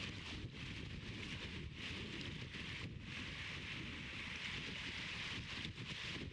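Steady outdoor wind noise: low rumble of wind on the microphone under a steady hiss.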